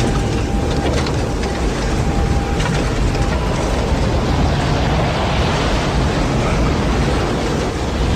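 Tornado sound effect: loud, steady rushing wind over a deep rumble.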